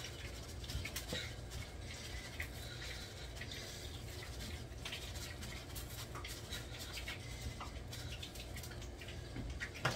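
Light scratching and pattering of ground black pepper and salt being shaken off a paper plate onto cooked spaghetti in a foil pan, with small irregular ticks throughout over a steady low hum.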